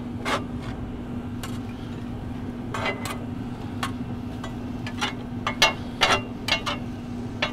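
Metal spatulas scraping and clinking against a flat-top griddle as shredded meat is pushed and shaped. The short, sharp clicks come at an irregular pace over a steady low hum.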